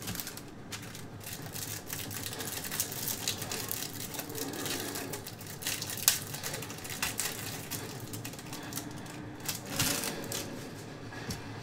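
Trading cards being thumbed through by hand and set down on stacks on a desk: a fast, uneven run of light clicks and snaps, with a sharper snap about six seconds in and another near ten seconds.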